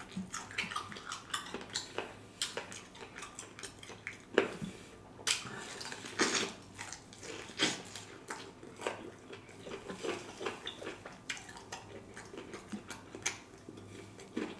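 Eating sauced fried chicken wings with the fingers: biting and chewing with wet mouth sounds, heard as a steady run of short sharp clicks and crackles.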